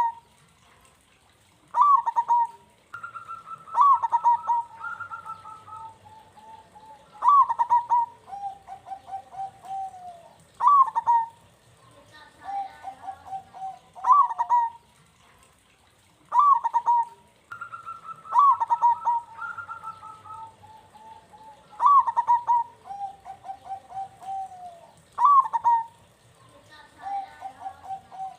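Zebra dove (perkutut) singing its rolling cooing song, the phrase repeated about every three to four seconds. Each phrase opens with a loud, sharp note and runs into a lower, rolling trill.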